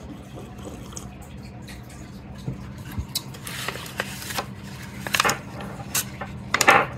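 Polished stones clicking and clinking against one another while being sorted by hand, with short rustles of packaging in between. The handling gets busier in the second half.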